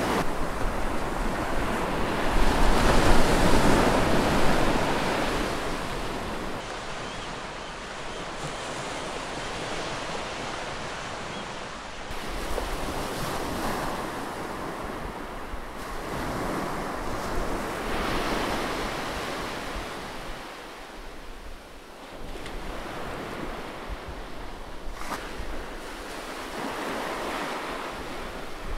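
Heavy ocean surf breaking, a wash of noise that swells and fades, loudest a few seconds in, with wind on the microphone.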